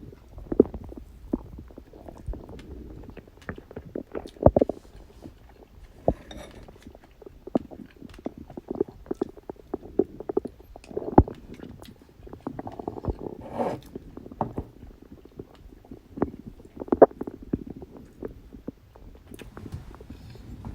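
Human stomach growling and gurgling with digestion sounds. Irregular bubbly gurgles are broken by sharp pops, with a longer run of gurgling a little past halfway.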